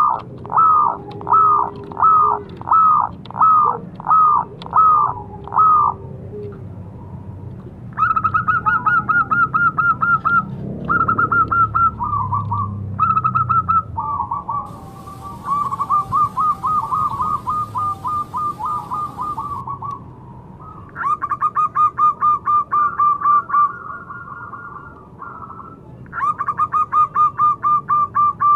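Zebra dove (perkutut) cooing: first a run of about nine separate, evenly spaced coos, then bursts of rapid, stuttering trilled cooing.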